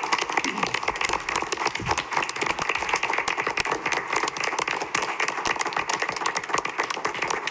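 Applause: a roomful of people clapping steadily.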